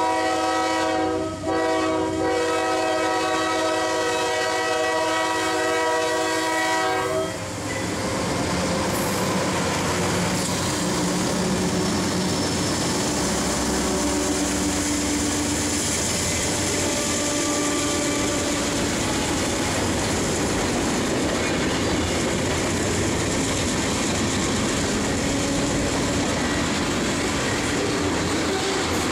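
Diesel freight locomotive air horn blowing for a grade crossing: a blast that breaks off about a second and a half in, then a long blast that stops about seven seconds in. Then the GE diesel locomotives pass close by with their engines running, followed by freight cars whose wheels clatter and rumble over the rails.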